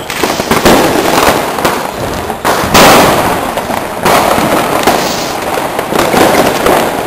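New Year's Eve fireworks: a series of loud bangs, the loudest about three seconds in, over a constant background noise of more fireworks going off.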